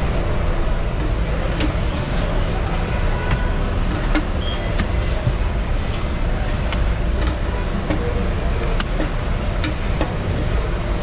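Steady street noise: a continuous low rumble like passing traffic, with scattered sharp clicks and knocks.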